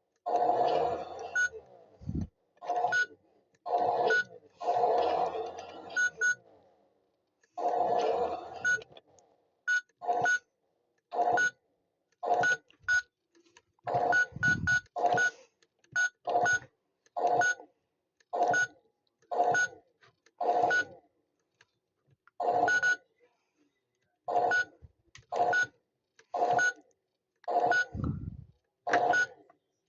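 A toy washing machine's electronic sound chip beeping over and over. There are a few longer, buzzy sound effects in the first nine seconds, then short beeps about once a second, each cut off to dead silence.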